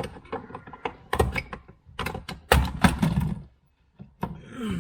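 Plastic interior trim panel being pried off, a run of sharp clicks and knocks as its clips pop loose and the panel knocks against the console.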